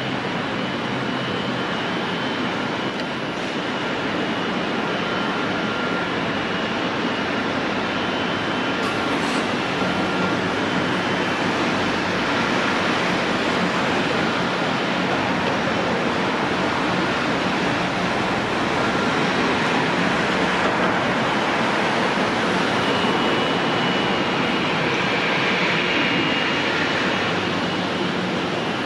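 Jet airliner engines running, a steady roar with faint high whining tones and a slight swell in the upper range in the second half.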